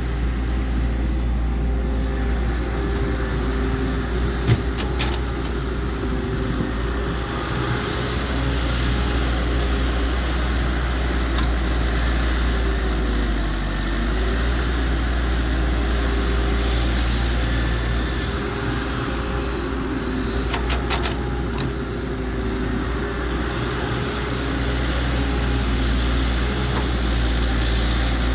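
Heavy diesel engine of an excavator running steadily, with its pitch dipping briefly about halfway through. A few sharp metallic knocks come about five seconds in and again around twenty seconds.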